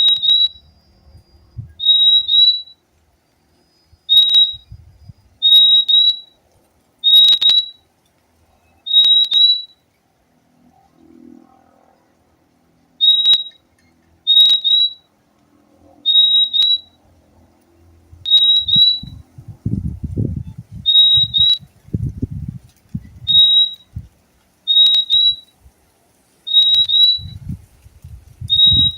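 Purple-throated euphonia (fim-fim) repeating its short, high two-note call, one pair every second or two, with a pause of a few seconds near the middle. Low rumbling thumps come in during the second half.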